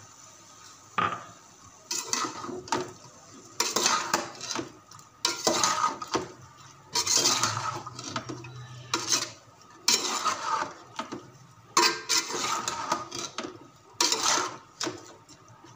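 Long metal slotted spoon scraping and knocking against an aluminium pot while chicken and chopped vegetables are stirred, a stroke every second or so.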